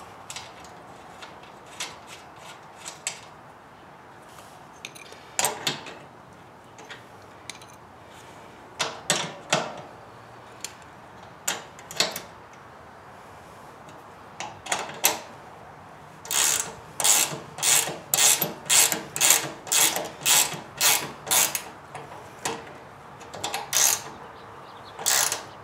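Ratchet wrench tightening the nut on a generator wheel's axle bolt. There are scattered clicks at first, then a quick run of ratcheting strokes about two a second in the second half, and a few more near the end.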